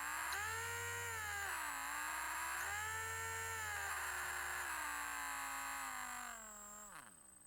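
Electric drill motor whining as it is run at varying trigger speed: it spins up, dips and speeds up again, then slowly loses pitch before winding down and stopping near the end.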